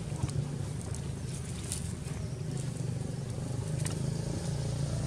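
Steady low engine hum of a motor vehicle, growing a little louder near the end, with a few faint clicks.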